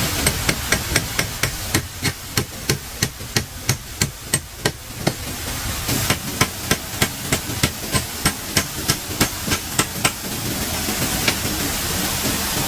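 Hammering: sharp, regular strikes at about three a second in two runs, with a short pause about five seconds in, over a steady hissing background.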